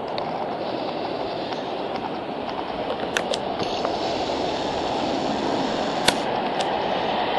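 Heavy rain pouring down, mixed with the hiss of car tyres on a flooded road, growing slowly louder, with a few sharp ticks of drops about three and six seconds in.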